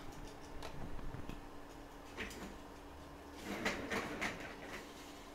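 Scattered light clicks and knocks of small tools and objects being handled on a workbench, with a denser cluster of them about three and a half seconds in, over a faint steady hum.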